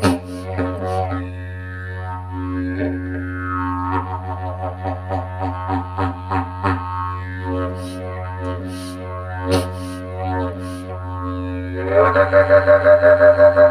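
Didgeridoo played with a steady low drone, the player sweeping its overtones by reshaping the mouth and adding sharp accents. Near the end it turns louder and rhythmic, pulsing about four times a second.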